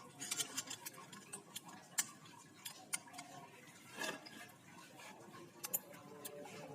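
Irregular sharp clicks and light taps of small hard objects, likely tools or small engine parts being handled: a quick cluster near the start, then single clicks about two, three, four and six seconds in.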